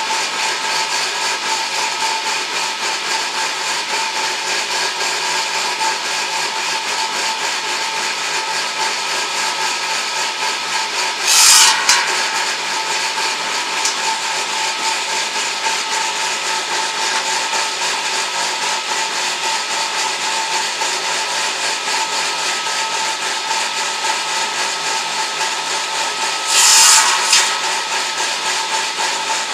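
Homemade edging saw running steadily with a constant motor whine, its blade rising into two short, louder bursts of sawing about eleven seconds in and again near the end.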